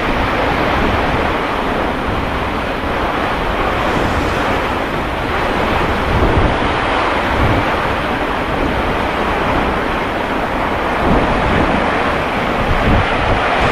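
Strong storm wind gusting steadily and buffeting the microphone as a squall hits, with a constant loud rushing and low rumbling thumps of wind on the mic.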